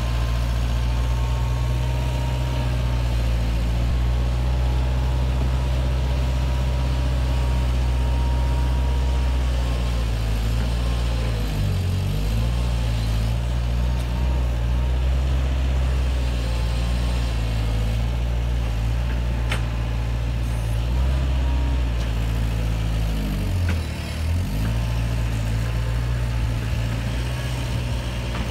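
The diesel engines of a Bobcat 442 compact excavator and a Bobcat 743 skid steer running steadily while backfilling soil, a continuous low drone. Twice, a bit before halfway and near the end, the engine pitch dips briefly and recovers as a machine takes load.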